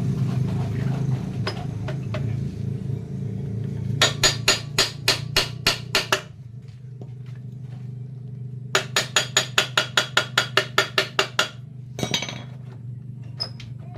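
Two runs of hammer blows during motorcycle repair work: about nine evenly paced strikes about four seconds in, then a faster run of about fifteen strikes a few seconds later, with one more knock near the end. A steady low hum runs underneath.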